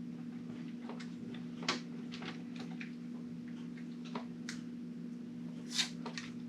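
Small clicks and light taps of a plastic adhesive child-safety cabinet lock being handled and fitted onto a cabinet door. A sharper tap comes about two seconds in and the loudest one near the end, over a steady low hum.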